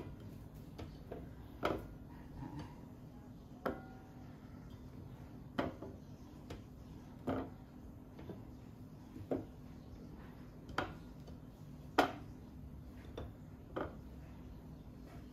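Carrot slices being set down one at a time in a stainless steel bowl, each making a light tap on the metal, about every one to two seconds. The loudest tap comes about twelve seconds in. A faint steady low hum runs underneath.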